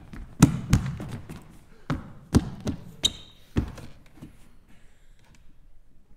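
Running footsteps thudding on a wooden stage floor, followed by a few knocks as a landline phone on a stool is grabbed and its receiver lifted; the knocks come irregularly and die away about four seconds in.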